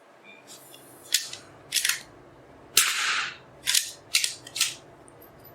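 Anschutz 1903 .22 LR target rifle firing one shot about three seconds in, a sharp crack with a brief ringing tail. Shorter metallic clicks of the single-shot bolt being worked come before and after it.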